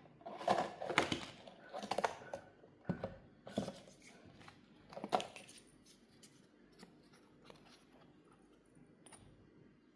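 Toy packaging being cut and torn open by hand: a run of short rustling, snipping strokes over the first five seconds or so, then a few faint light clicks.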